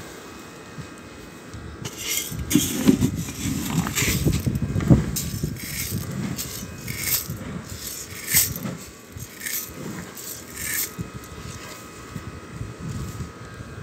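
Dry grain rattling against a metal can as it is scooped and poured, in a string of short rattling rushes.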